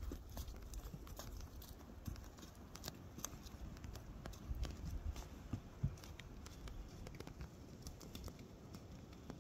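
Horses walking through dry leaf litter and dead fall, their hooves crunching leaves and snapping twigs in irregular steps, over a low rumble.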